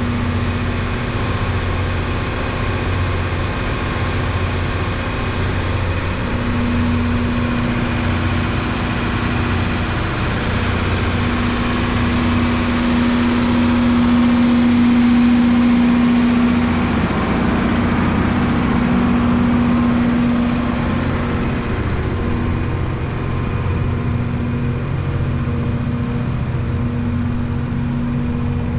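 Loram RG-401 rail grinder train running, with a steady heavy engine rumble and a held hum. It grows louder around the middle and then eases back.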